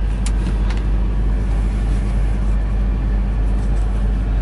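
Semi truck's diesel engine idling steadily, a low drone heard inside the cab. A couple of light clicks sound near the start.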